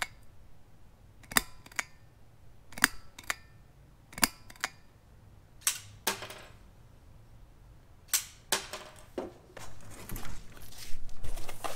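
Sharp plastic clicks and snaps from the 3D-printed mini crossbow, coming mostly in pairs about half a second apart, with a denser run of clicks near the end.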